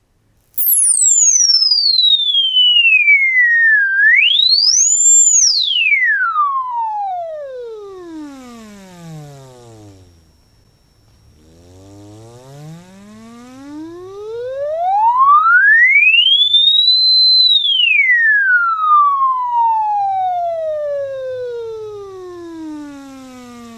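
Pure sine tone from the bare 45 mm driver of a JBL GO 4, driven by a phone tone generator and swept up and down in pitch. It starts about half a second in, high and falling, with a quick rise around five seconds. It then falls into the bass, where it grows much quieter and picks up overtones, before rising again and falling once more.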